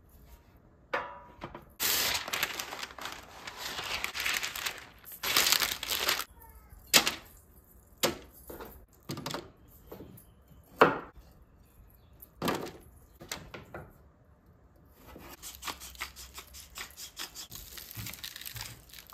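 Baking paper crinkling as it is laid into a metal baking tray, then sliced vegetables set down on it one by one in separate sharp knocks. Near the end, seasoning is sprinkled over the vegetables with a fast, fine patter.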